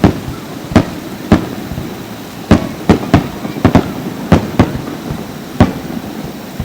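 Fireworks bursting: about a dozen sharp bangs at irregular intervals, some in quick pairs, each trailing off in a short rumble.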